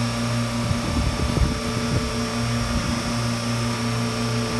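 Industrial machine running steadily: a constant electric hum under a broad whirring hiss, with irregular low rumbles and knocks through the first couple of seconds.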